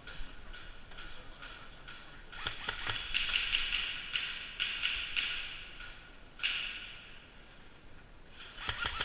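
Airsoft guns firing in short bursts, rattling on and off, with sharp knocks of BBs striking hard surfaces.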